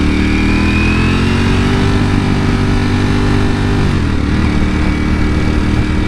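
Ducati Panigale V4 motorcycle engine running under way, its note climbing gently, holding steady, then dipping briefly about four seconds in before settling again.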